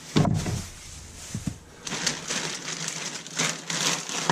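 Thin plastic bags rustling and crinkling in repeated bursts as produce is pulled out of a shopping bag, starting about two seconds in; a brief low thump comes just after the start.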